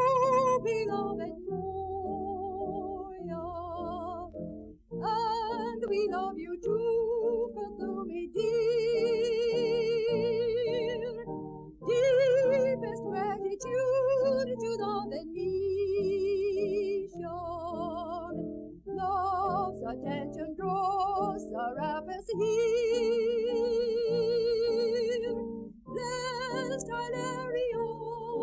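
A woman's voice singing a slow devotional hymn with wide vibrato, holding long notes in phrases broken by short breaths, over instrumental accompaniment.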